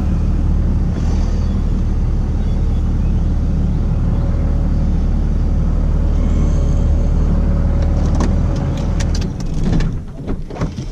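Pickup truck driving, a steady low rumble of engine and road. The rumble dies away about nine seconds in, and a run of sharp clicks and knocks follows.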